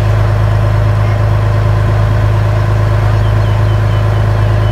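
River boat's engine running steadily under way, a constant low drone heard from on board.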